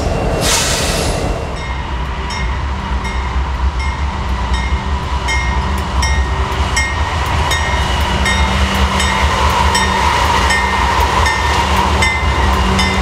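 Norfolk Southern freight train passing close: the diesel locomotives run with a steady low rumble, and the wheels click regularly over the rail joints. The sound grows louder as the lead units come alongside.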